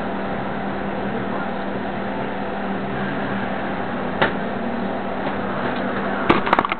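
A steady mechanical hum with a constant low tone, broken by a single knock about four seconds in and a quick cluster of knocks and rattles near the end.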